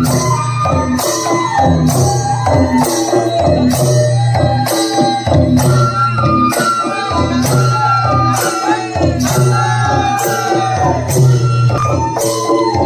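Live Bodo traditional music: siphung bamboo flutes play a wavering, bending melody over a kham barrel drum, with a sharp metallic clash on the beat a little more than once a second.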